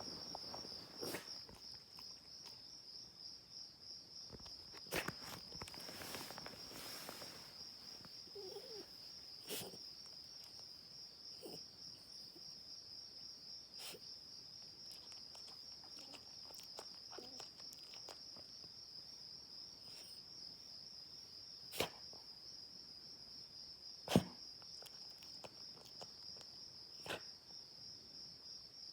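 Steady high-pitched chirring of insects such as crickets, pulsing finely without a break. A few short, sharp clicks or knocks sound over it, the two loudest in the last third, about two seconds apart.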